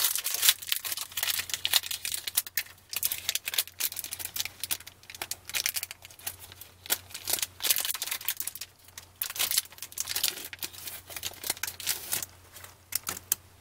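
Plastic wrapper of a crimp-sealed trading-card pack being handled and torn open: dense, irregular crinkling and crackling that dies away near the end.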